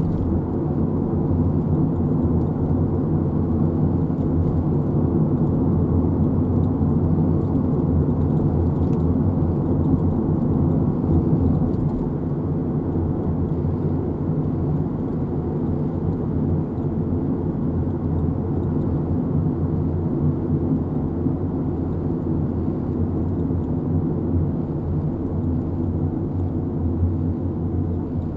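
Steady low rumble of a car driving, with no change in pace.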